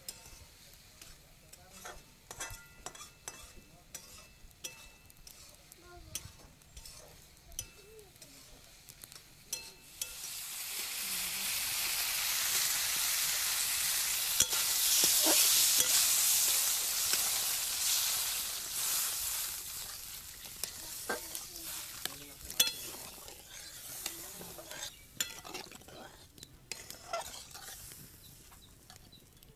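A metal spatula stirring and scraping in a shallow metal wok of spiced curry over a wood fire, in scattered clicks. About a third of the way in, the frying masala sets up a loud hissing sizzle that builds for a couple of seconds, holds, then fades away, and the scraping clicks go on.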